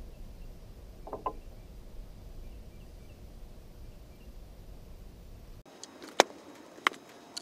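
A steady low rumble, then near the end two sharp clicks as a new seal is worked by hand onto the hydraulic lift cylinder's piston; the first click is the loudest.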